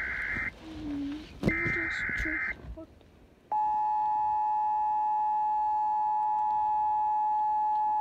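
Emergency Alert System SAME header data bursts, the end of one and then another about a second long, followed after a short gap by the steady two-tone EAS attention signal, which starts about three and a half seconds in and holds. It is the tone that opens a new alert, here a tornado warning.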